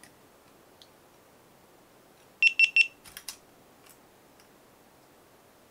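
A GoPro camera beeping three quick times in a row at one high pitch, followed by a few light clicks.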